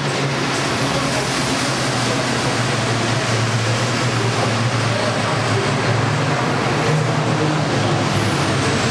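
A pack of race trucks' turbodiesel engines running hard at racing speed: a loud, steady rush of noise over a low engine drone.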